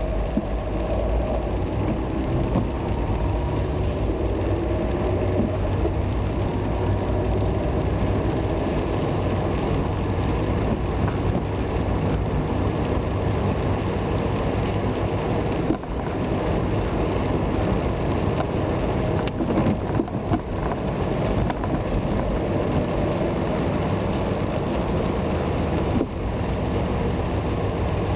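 A car driving on wet roads: a steady engine hum under the hiss of tyres and road noise, with a couple of brief dips.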